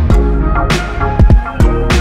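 Background music with a steady drum beat and deep bass.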